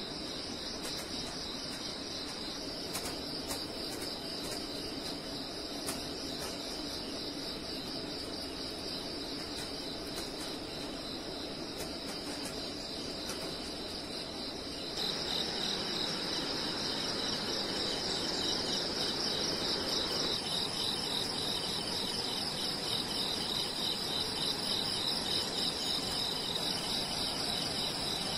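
A steady, high-pitched insect chorus trilling continuously with a fast pulsing texture, stepping up in loudness about halfway through.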